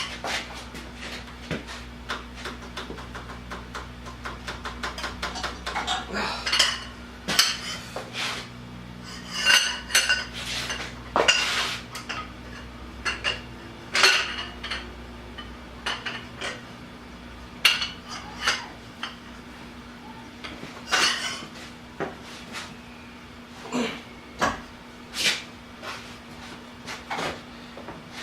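Steel hand tools clanking and clinking against each other and the engine as bars and sockets are repositioned on a crankshaft pulley bolt that will not break loose: irregular sharp metallic knocks, some ringing briefly, over a faint steady hum.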